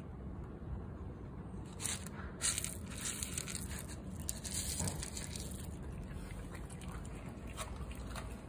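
Dry cat kibble rattling in a small bowl and scattering onto concrete as it is poured out, a dense clatter lasting about three seconds from roughly two seconds in.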